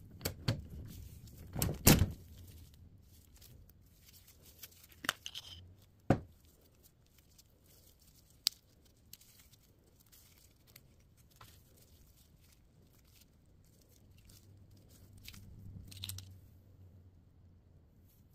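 Handling noises as a 25mm M919 sabot round is taken apart by gloved hands: sharp clicks and knocks of its metal and plastic parts, the loudest about two seconds in and others near five and six seconds, then a soft rustling near the end as the plastic sabot is worked off the dart.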